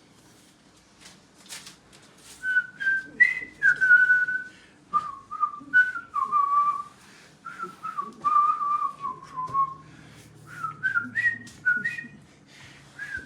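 A person whistling a tune, a run of short and held notes stepping up and down, starting about two and a half seconds in. Light clicks and rustles come along with it.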